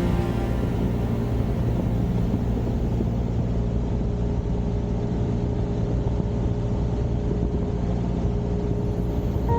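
Steady engine-and-propeller drone of a Cessna 172 in flight, heard from the cockpit.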